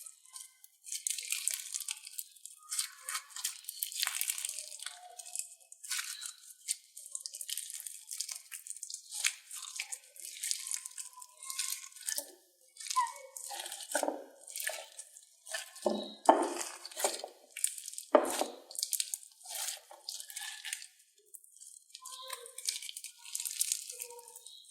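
Slime being squeezed and stretched by hand, with irregular crackling and popping throughout and a few louder squelches around the middle.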